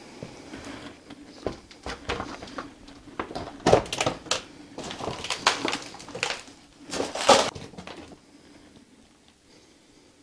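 Footsteps crunching over broken plaster and rubble on a floor: an irregular string of crunches and knocks that dies away about eight seconds in.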